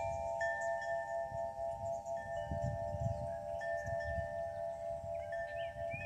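Wind chimes ringing in a breeze: several tones ring on and overlap, with fresh strikes every second or two. Gusts of wind rumble on the microphone underneath.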